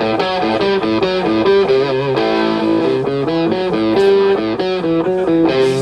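Amplified electric guitar playing a run of picked notes and chords, with a wavering, bent note about two seconds in: a guitarist trying out the amp during a band's sound check.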